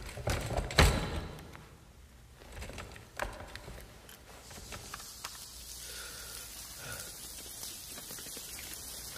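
A few thumps and rustling knocks, the loudest about a second in, then from about four seconds in a steady hiss of rain.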